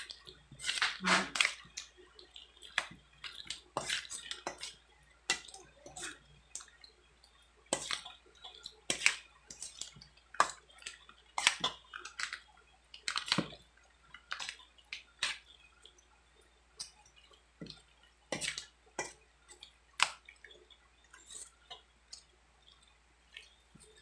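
A hand mixing chopped boiled pork in a creamy mayonnaise dressing in a stainless steel bowl: irregular wet squelches and short clicks, about one every half second to a second.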